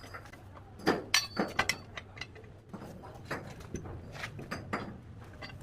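Irregular sharp clicks, knocks and clinks of hard tools and building materials being handled, thickest about one to two seconds in.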